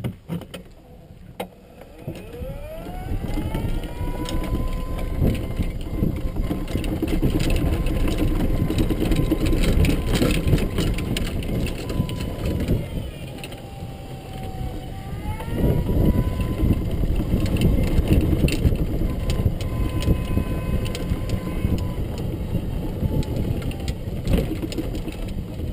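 Golf cart driving, its drive whining as it speeds up about two seconds in and then holding steady, easing off partway through and picking up again, over a steady rumble and rattle of the cart body on the ground.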